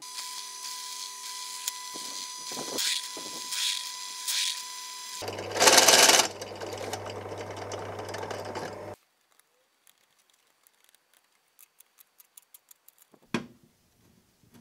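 Benchtop drill press running, its bit cutting through a thin painted metal panel with a few swells as it bites. About five seconds in, a stepped bit takes over and the cutting is louder and noisier until the motor stops about nine seconds in. After that come only faint, scattered light clicks and one sharper knock.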